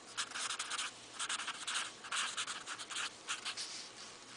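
Felt-tip marker writing on paper: a run of short, scratchy strokes in quick uneven clusters as words are written.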